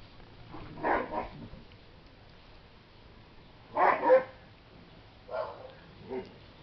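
Dog barking off camera in four short bouts, the loudest about four seconds in.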